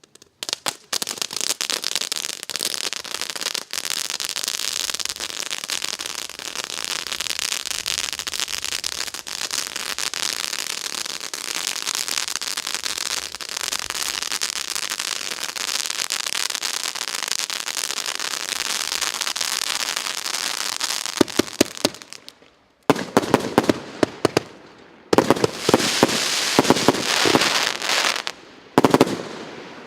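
Pyrotechnic fountain-salute firework spraying with a steady, dense crackling hiss that starts about half a second in and lasts some twenty seconds. Over the last seven seconds it breaks into separate crackling bursts with sharp pops.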